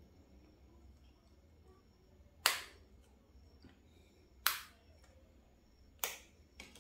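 Sharp plastic clicks as a payment chip is pushed out of its plastic bank card: four clicks, about two seconds apart at first, the last two close together near the end.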